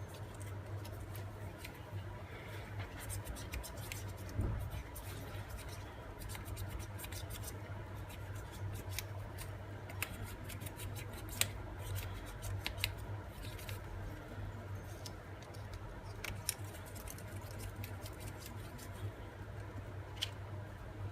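Paper petals and a ball stylus being worked on a cushioned pad: scattered light scratches and clicks of paper handling, over a steady low hum.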